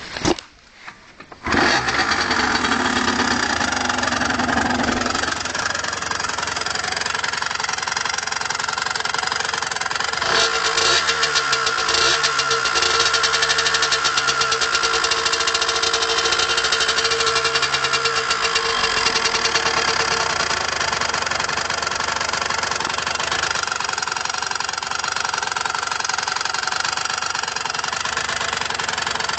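Derbi Senda motorcycle engine starting about a second and a half in, then running with the revs rising and falling for a while before settling, making the strange noise the owner is asking about.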